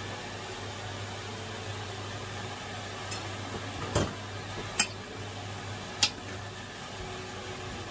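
A metal spoon knocking against a steel cooking pot while chicken is stirred into the spice paste: four short sharp clinks between about three and six seconds in, over a steady low hum.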